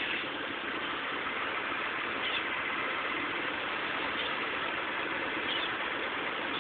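Diesel engine of a Hitachi 210 excavator running steadily, with a few faint, short high squeaks.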